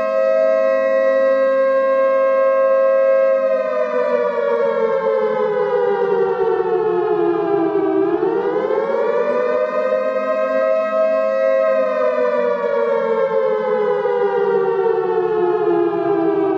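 Outdoor warning siren wailing in two close tones. It holds steady for a few seconds, then slowly falls in pitch, rises again from about eight seconds in, holds, and slides down once more near the end.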